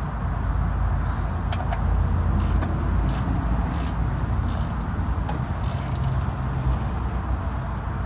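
Socket wrench ratcheting in short rasping runs, about six of them a little over half a second apart, as the oil pan drain plug is turned out. Under it runs a steady low rumble.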